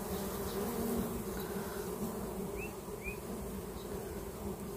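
Dwarf honey bees buzzing steadily around their wild comb, a continuous low hum. Two short rising chirps come about halfway through.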